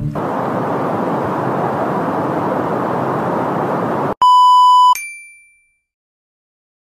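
A steady rushing noise of open sea runs for about four seconds. It is cut off by a loud, flat electronic beep lasting just under a second, a censor-style bleep sound effect, which ends in a brief fading higher tone. Then there is dead silence.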